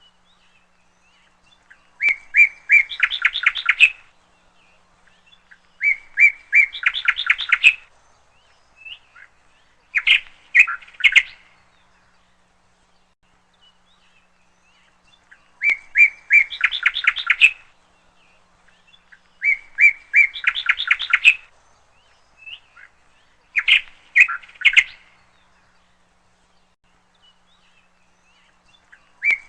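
Bird song in short repeated phrases, each a quick run of chirps lasting about two seconds, coming every four seconds or so with quiet between; a shorter double phrase comes twice.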